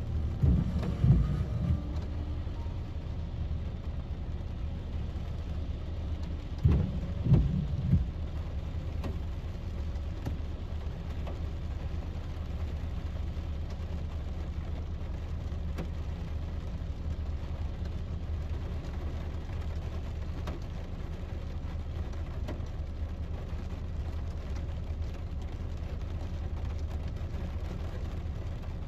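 Rain pattering on a car's windscreen and roof, heard from inside the cabin over the car's low steady hum while it sits in traffic. Two short bursts of low thumps come about a second in and again about seven seconds in.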